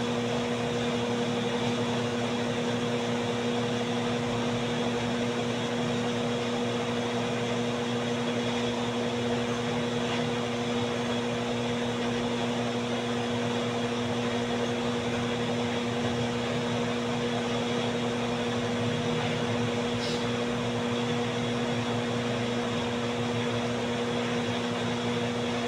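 Electric fan running steadily: a constant whir of moving air with an even motor hum underneath.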